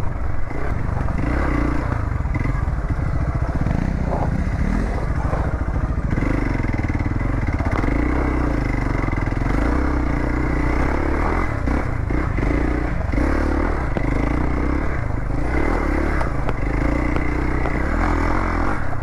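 Single-cylinder dual-sport motorcycle engine running steadily as the bike is ridden.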